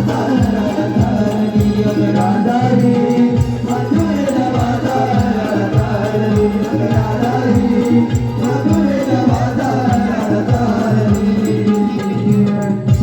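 Naman folk music: a voice singing a melodic line over steady held drone tones, with a regular beat of drum strokes and jingling percussion.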